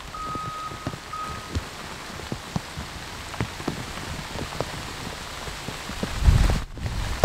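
Steady rain falling, with individual drops ticking sharply close by. A high, steady beep repeats for the first second and a half, then stops. Wind buffets the microphone with a low rumble near the end.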